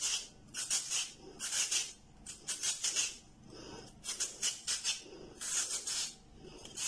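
Peeled raw potato being grated into thin shreds on a hand-held julienne cutter: rhythmic scraping strokes, a little more than one a second.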